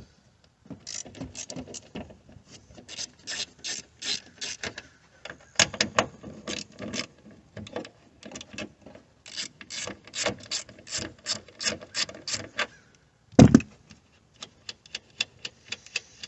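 Ratchet wrench clicking in short runs of back strokes, with brief pauses between them, as it loosens an 8 mm tail-light nut. A single louder knock comes about 13 seconds in.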